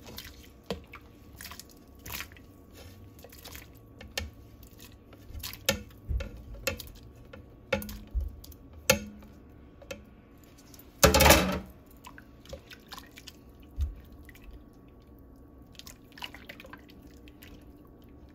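Cooked chicken pieces added to a pot of broth: scattered wet plops and light clinks of a utensil, with one louder, longer scraping or splashing sound about eleven seconds in.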